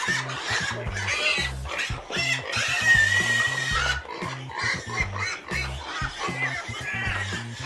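Background music with a repeating bass line, mixed with farm animal calls.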